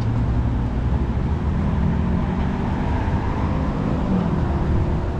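Steady road traffic: cars passing through a city intersection with a low rumble of engines and tyres.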